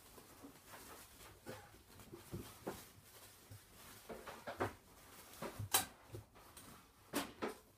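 Bengal kittens at rough play, with irregular scuffling, soft knocks and scattered clicks from their paws and claws on the floor and bedding. A few sharper clicks come about two thirds of the way through and near the end.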